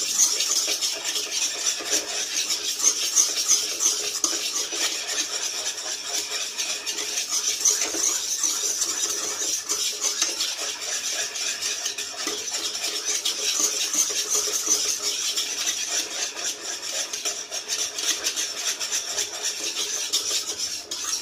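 A utensil stirring and scraping fast and without pause around a pan of thick, drying reduced milk. It works along the pan's bottom and sides so the milk does not catch and burn as it cooks down into kalakand.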